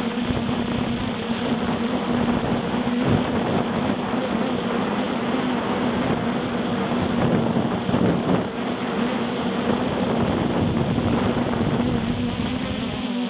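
Multirotor drone's propellers humming steadily at one constant pitch, with wind buffeting the microphone.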